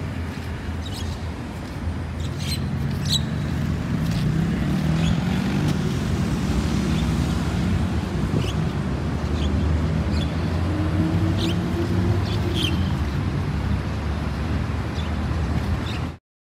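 Road traffic on a city street: cars passing with a steady rumble of engines and tyres, plus a few short high chirps scattered through it. The sound cuts off abruptly near the end.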